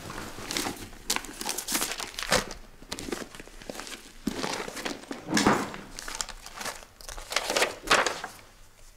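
Sheets of paper rustling and crinkling in irregular handfuls as documents are leafed through, with the loudest rustles about two and a half, five and a half and eight seconds in.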